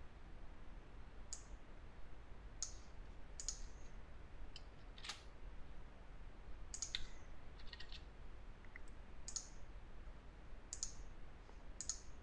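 Sparse clicks of a computer mouse and keyboard in use, about ten single clicks spread irregularly, over a faint low hum.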